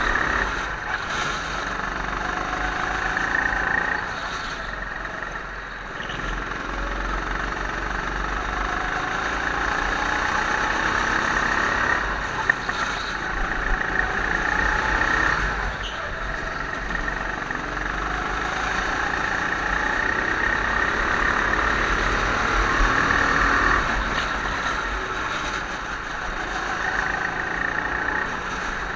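Go-kart engine running under load through corners, its sound swelling and easing several times as the throttle is opened and lifted. A single sharp knock comes about twelve seconds in.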